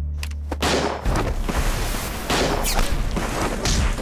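Battle sound effects of gunfire and explosions: a few sharp shots, then a dense run of blasts and shooting that keeps going.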